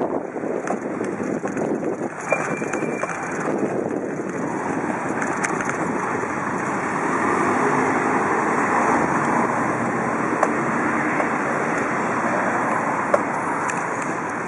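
Wind buffeting a bicycle-mounted microphone while riding, mixed with the hum of city street traffic. It grows a little louder about halfway through.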